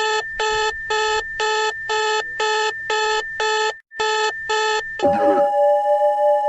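Electronic emergency-alert alarm beeping rapidly, about twice a second, over a steady high tone. About five seconds in it gives way to a sustained chime-like tone.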